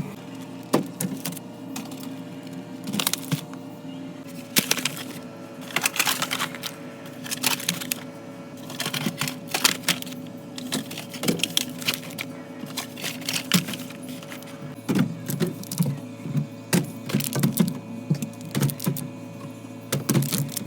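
Irregular clicks and knocks of food containers and items being handled and set onto fridge shelves, over soft background music.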